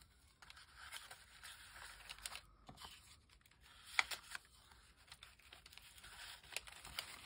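Faint paper rustling and crinkling as handmade journal cards and tags are slid back into a paper envelope pocket and a large sheet of paper is lifted, with one sharper crinkle about four seconds in.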